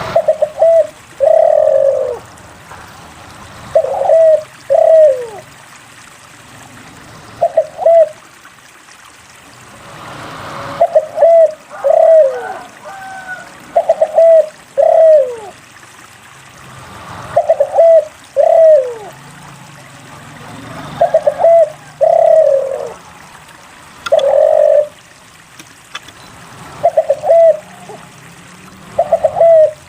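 Spotted dove (derkuku) cooing over and over, each phrase a few short coos followed by one longer coo that falls in pitch, repeated about every three to four seconds.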